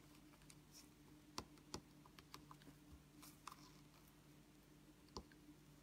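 Faint, scattered light clicks of a gel nail brush tapping and working inside a small jar of brush cleaner, over a low steady hum.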